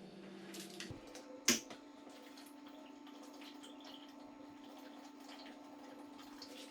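Quiet room tone with a faint steady hum, broken by one sharp click about a second and a half in and a few faint ticks.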